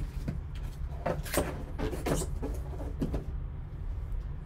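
Gloved hands handling a cardboard card box and its foam insert: a quick run of scrapes, rustles and light knocks from about one to three seconds in, over a steady low hum.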